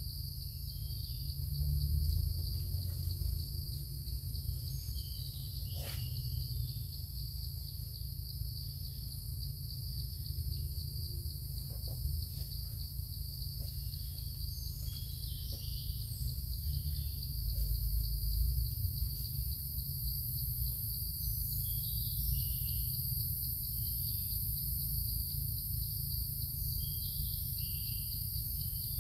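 Steady, unbroken high-pitched drone of forest insects, with scattered short chirps and a low rumble underneath.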